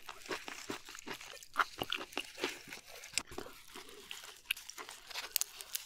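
Close-miked crinkling and soft wet clicks of a perilla leaf being folded by hand around slices of raw seafood, in small irregular crackles.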